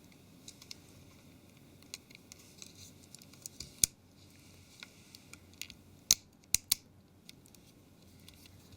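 Small plastic clicks and light scrapes as the Nokia 701's bottom cover is fitted back onto the phone and pressed into place. There is a sharper click about four seconds in and three quick clicks a little after six seconds.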